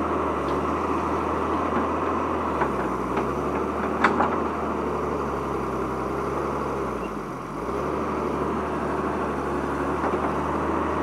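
Caterpillar 320C excavator's diesel engine running steadily while the machine digs, its note dropping and recovering about seven seconds in. A few sharp clanks, the loudest about four seconds in.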